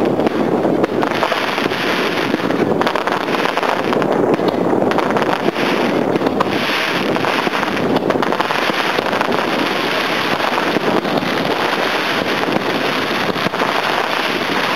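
Fireworks crackling in a continuous dense din: many small pops run together, with no single big bang standing out.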